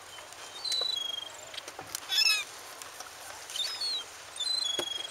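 Gulls calling: a few short high cries about a second in, a louder cluster of cries a little after two seconds, and more cries near the end.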